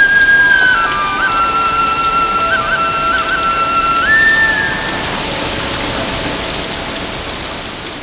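Rain falling on open lagoon water, a steady hiss of drops hitting the surface. For the first half a slow flute melody of long held notes plays over it, ending about five seconds in.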